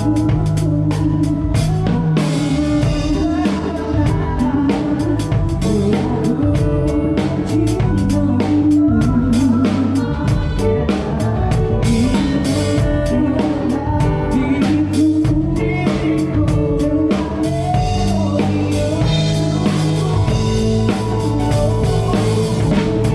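A band playing a song through a PA at a sound check: a singer's voice over drums and guitar with a steady beat.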